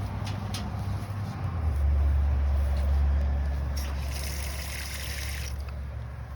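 Running water, a steady trickle, poured or run into the rusty cast-iron Dutch oven to wash it, with a louder hissing spray for about a second and a half past the middle.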